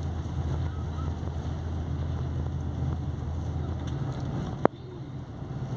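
Steady low rumble of a moving long-distance coach, engine and road noise heard inside the passenger cabin, easing a little about four seconds in. A single sharp click near the end is the loudest sound.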